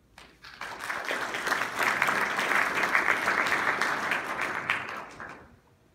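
Audience applauding, building up over about a second and dying away near the end.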